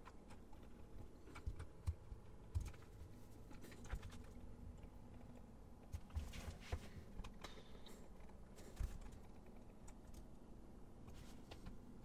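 Faint, irregular clicks and taps of a computer keyboard and mouse, some single and some in small clusters, over quiet room tone.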